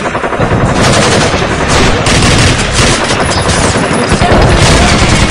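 Rapid automatic gunfire sound effects: a dense, continuous rattle of overlapping shots, building up within the first second.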